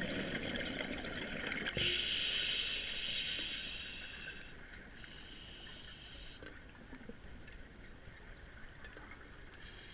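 Underwater breathing through a scuba regulator: a rush of bubbles and a loud hissing breath in the first four seconds, a shorter fainter hiss a little later, then a low steady underwater background with faint ticks.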